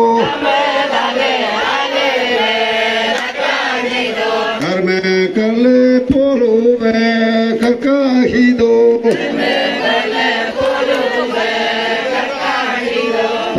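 Nyishi buya, a group of men and women chanting together over a steady droning held note, with a shifting sung melody above it.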